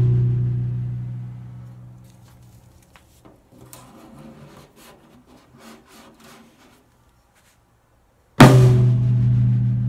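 Tom-tom ringing out with a low, steady pitch from a stick stroke just before, fading away over about two seconds. Small taps and rustles follow as a tape-and-toilet-paper muffling pad is pressed onto the head. About 8.5 s in the tom is struck once more with the pad on, ringing just a little cleaner.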